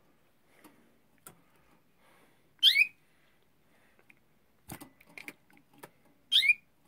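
Canary in its cage giving a loud, sweeping chirp call twice, about four seconds apart. Between the calls come several light clicks and taps.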